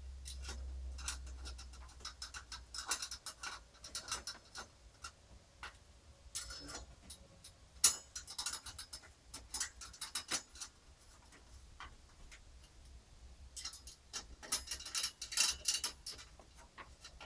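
Screws being driven by hand into a metal PC case with a screwdriver: bursts of small clicks and scraping rasps, with one sharp click about eight seconds in.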